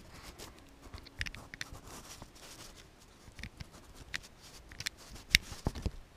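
Handling noise of a hand-held camera: irregular small clicks and rubs of fingers on its case, with a few sharper knocks a little after five seconds in.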